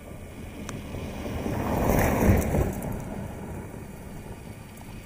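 BMW X3 passing by at speed on a gravel track, its engine and tyres on loose gravel making a rushing noise that swells to its loudest a little after two seconds in, then fades as it drives away.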